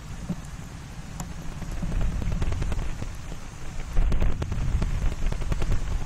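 Low rumble with dense, irregular crackling, swelling about two seconds in and again about four seconds in, typical of wind buffeting an outdoor microphone.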